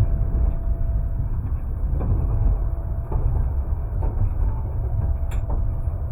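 Passenger train running on the rails: a steady low rumble with a few faint clicks now and then.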